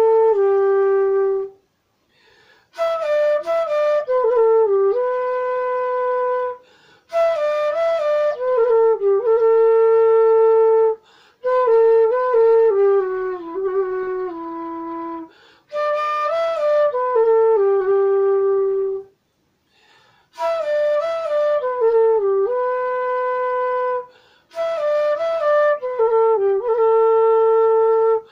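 G-base bansuri of fry-treated bamboo, played in short melodic phrases that step down to a long held note, with brief breath pauses between phrases. It is being played against a tuner to check its tuning.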